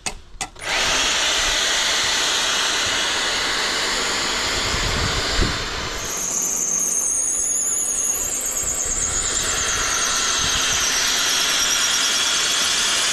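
Titan power drill running under steady load with a long drill bit, starting about a second in. A high-pitched whine joins about halfway, from a drill that is wearing out.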